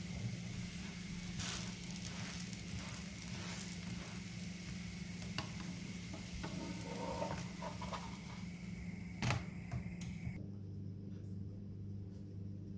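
A crepe frying in a hot pan, a steady light sizzle with a few soft taps and scrapes as it is handled. A sharp click comes about nine seconds in. The sizzle then cuts off abruptly, leaving a steady low hum.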